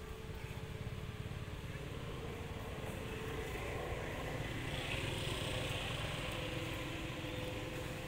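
A motor engine running steadily: a low rumble with a faint droning tone, getting a little louder around the middle.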